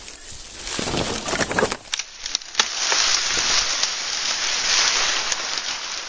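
Dry leaves, twigs and palm fronds rustling and crackling as someone pushes through dense undergrowth. There are a few sharper crackles in the first two seconds, then a steadier rustle.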